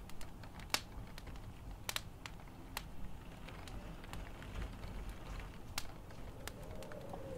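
Faint low hum with scattered light clicks and taps, about a dozen, unevenly spaced.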